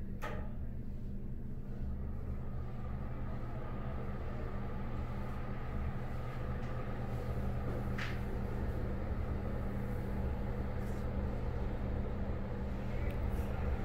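Older quiet-series Broan ceiling exhaust fan running, a steady low motor hum with the rush of air through the grille, growing slightly louder toward the end. A sharp click just after the start and a fainter one about eight seconds in.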